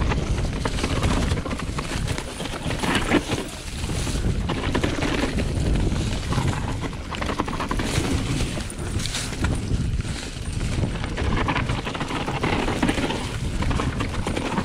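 Specialized Enduro 29 mountain bike descending a dirt singletrack: wind rushing over the GoPro's microphone, tyres rolling over dirt and dry leaves, and a steady run of small clicks and knocks from the bike rattling over bumps.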